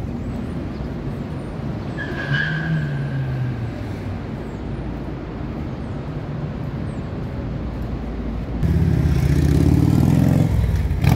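City street traffic: a steady rumble of cars and engines. A louder pitched engine rumble comes in for about two seconds near the end.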